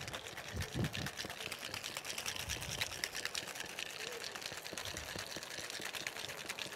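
Ice rattling rapidly in a cocktail shaker shaken hard by hand, mixing a bourbon, passion fruit and egg-white cocktail. The rattle is fast and even, with a few dull knocks about a second in.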